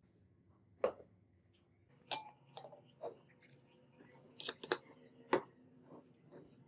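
Glass beakers and a plastic funnel handled and set down on a bench: about seven sharp taps and clinks, some with a brief glassy ring.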